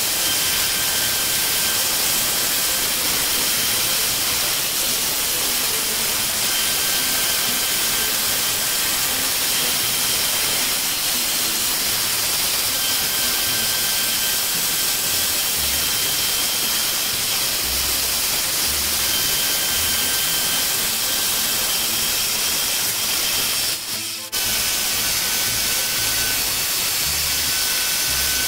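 CNC mill cutting an aluminum block with an end mill under a steady hiss of air-mist coolant spraying at the cutter. A faint high whine comes and goes every few seconds, and the sound briefly drops out about 24 seconds in.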